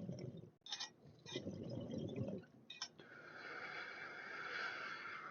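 Someone taking a hit of cannabis: two low rushing draws broken by short clicks, then from about three seconds in a longer, higher breathy hiss.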